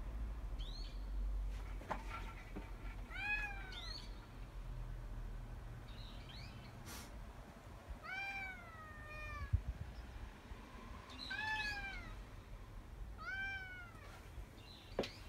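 American Shorthair cat meowing repeatedly, about six short calls that each rise and then fall in pitch, spaced unevenly a second or more apart: the calls of a cat that wants to be let outside.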